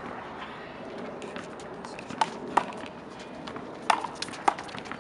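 A rubber handball smacked by hand and slapping off the wall and concrete court during a rally, a string of sharp smacks with four louder ones in the second half, with players' sneakers moving on the concrete.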